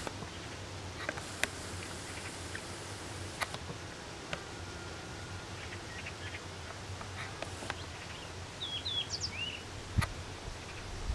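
Open-air ambience with a steady hiss and scattered small clicks. A bird gives a few quick chirps near the end, followed by a single thump as the camera is swung.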